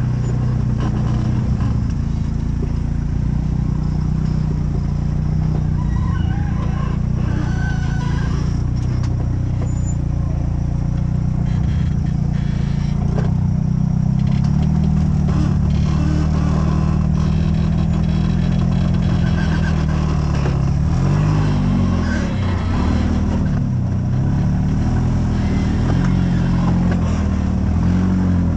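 Off-road rock-crawler buggy engines running: a steady low engine drone that, in the last third, rises and falls in pitch again and again as the throttle is worked.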